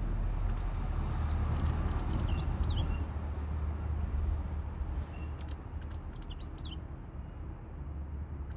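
White wagtail calling: short, high chirps and quick sweeping notes in two clusters, one in the first three seconds and another from about five to seven seconds in, over a steady low rumble.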